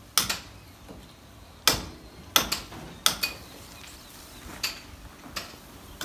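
About six sharp hammer knocks at uneven intervals, each with a short ring, from hammer and chisel on brick as electricians cut holes for wiring conduit.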